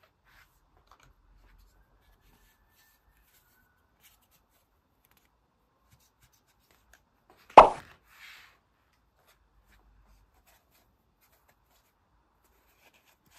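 A single sharp tap of a small plastic toy piece set down on a hard surface, about halfway through, followed a moment later by a faint light rattle; otherwise near silence.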